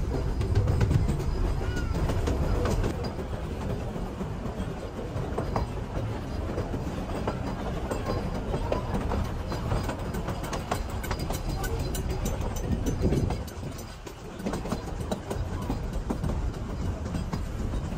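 Puffing Billy's narrow-gauge steam train carriages rolling along the track: a steady rumble with scattered wheel clicks and rattles, dropping briefly about three-quarters of the way through.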